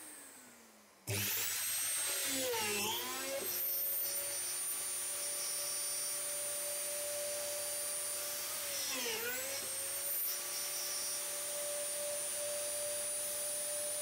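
Mafell DD40 dowel drilling machine: its motor winds down, starts again suddenly about a second in and runs at speed with a steady whine. The pitch dips briefly twice, around three seconds and nine seconds in, as the bits bore into the pine panel.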